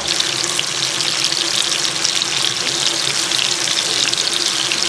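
Water running steadily from a kitchen tap into a sink, a continuous splashing hiss.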